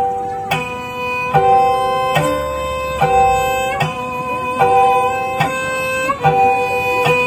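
Sundanese tarawangsa string music: a plucked string instrument repeats a short figure, a new note struck about every 0.8 s and each ringing on until the next.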